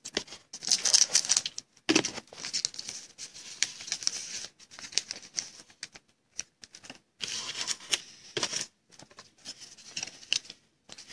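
Foil wrapper of a Panini NBA Hoops trading-card pack crinkling and tearing as it is opened by hand, in a run of short rustling bursts with small clicks, then the cards inside being handled.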